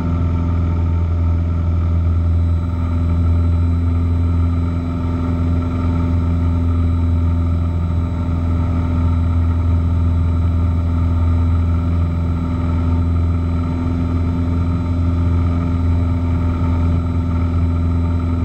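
Single-engine Piper PA-28 Cherokee's piston engine droning steadily at climb power, with a strong low hum and a few steady tones.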